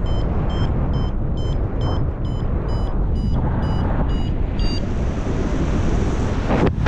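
Paragliding variometer beeping in short high pitched beeps about twice a second, the sound it makes while the glider is climbing in lift; the beeping stops about five seconds in. Loud wind rushes over the microphone throughout.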